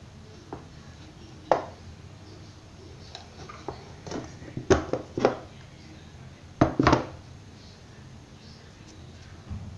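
Kitchen handling around a stainless-steel mixing bowl: a string of short, sharp clinks and knocks in irregular clusters as a measuring spoon and containers are set down on the counter and against the bowl.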